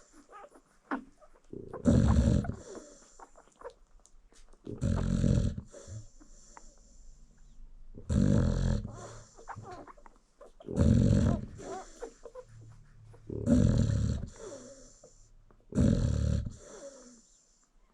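An American Bully mother dog snoring while she nurses her newborn puppies: six loud snores, about one every three seconds, with quieter breathing between them.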